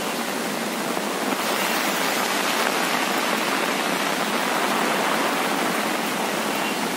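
Steady rush of muddy floodwater from an overflowing river, with rain falling.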